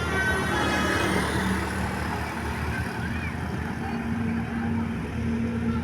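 A bus's telolet multi-tone musical horn finishes its tune about a second in. The bus's engine and road noise follow and carry on, easing off slightly.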